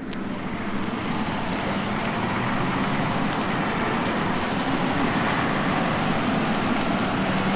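Steady vehicle noise that fades in at the start and then holds level.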